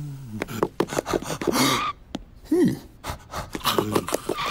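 A cartoon character's wordless vocal noises: short breathy gasps, grunts and mumbles in quick bursts, with a few sharp clicks between them.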